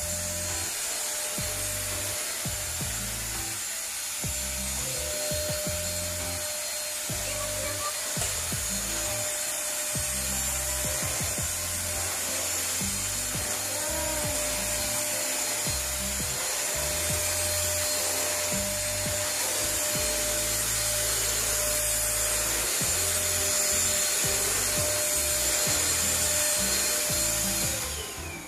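Corded stick vacuum cleaner running steadily, a rushing hiss of motor and airflow with a thin held whine, as it is worked across a tiled floor. It cuts off just before the end.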